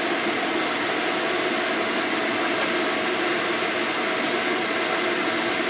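Steady hum and hiss of a light rail tram standing at a platform with its on-board equipment running, heard from inside the driver's cab.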